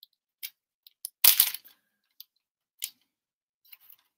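Thin clear plastic card sleeve crinkling and rustling in the fingers as a trading card is worked into it: a handful of short crackles, the loudest about a second and a half in.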